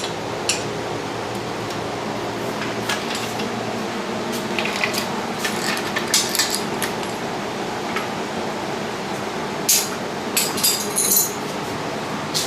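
Metal parts and tools of a home gym clinking and clicking while it is unbolted and taken apart: scattered sharp knocks, grouped in a few bunches, over a steady room hum.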